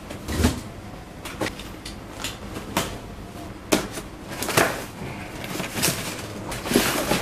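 A large cardboard box being turned over and handled, its end flap pulled open: scattered scrapes, taps and rustles of cardboard at irregular moments.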